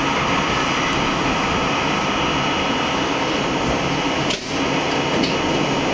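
An R32 subway train running through a tunnel: steady noise of steel wheels on rails and traction motors. The level dips briefly, with a sharp click, a little over four seconds in.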